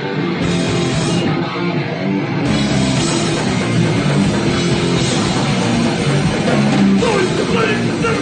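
A rock band playing live: distorted electric guitar, bass guitar and a drum kit, with the sound filling out in the low end about two and a half seconds in.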